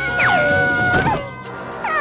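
Cartoon background music with a kitten character's whimpering cries sliding down in pitch, as it winces on the verge of tears.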